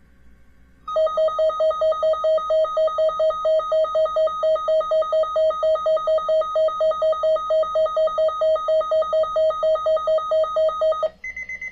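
Broadcast emergency alert tone: a loud, rapidly pulsing electronic beep at about four pulses a second, starting about a second in and running for some ten seconds, then a short higher-pitched beep near the end.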